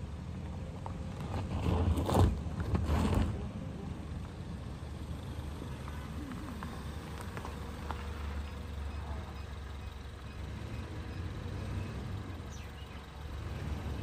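A vehicle engine running steadily at low revs, with a louder rush of noise about two seconds in that lasts about a second and a half.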